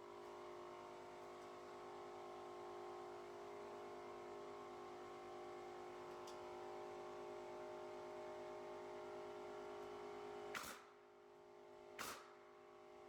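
Two sharp shots from a pneumatic nail gun about a second and a half apart near the end, over a steady machine hum made of several fixed tones that drops away at the first shot.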